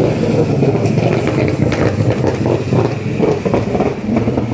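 Engine of a V8 Supercars race car running at low speed as the car drives past along the pit lane and moves away, with an uneven, crackly note.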